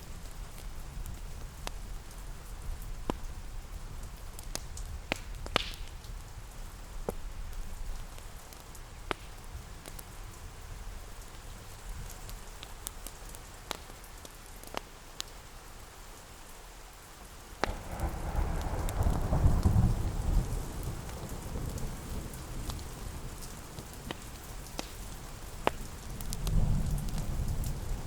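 Steady rain ambience with scattered sharp crackles from a fireplace. Thunder rumbles in suddenly about two-thirds of the way through and swells for a few seconds, with a second shorter rumble near the end.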